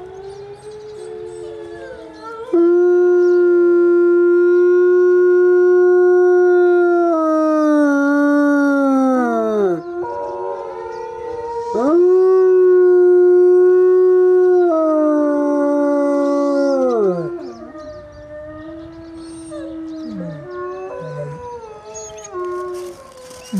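Gray wolf howling at close range: two long, low howls, each held on one steady pitch for several seconds and then falling away at the end. Between and around them are fainter howls of another wolf in the distance that it is answering.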